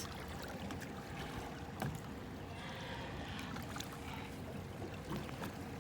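Steady wash of fast-moving river water below a dam, with a faint constant hum and a couple of small knocks.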